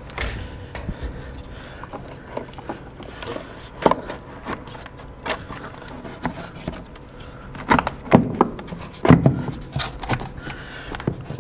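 Plastic air filter box lid being fitted back onto the airbox by hand: scattered plastic knocks, clicks and scrapes, with the sharpest knocks near 4 seconds and a cluster around 8 to 9 seconds.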